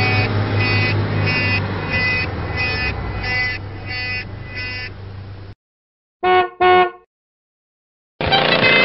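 Horn sound effects in sequence: a horn sounding in repeated beeps, about three every two seconds over a steady low hum, cutting off about five seconds in. Then a quick double honk, and near the end a long horn blast begins.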